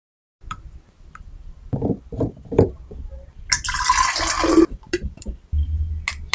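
Water poured into a clear plastic cold-brew bottle through its filter insert, a pouring splash lasting about a second from about three and a half seconds in. Light clicks and knocks of the plastic parts being handled come before it, and a couple of sharp clicks follow.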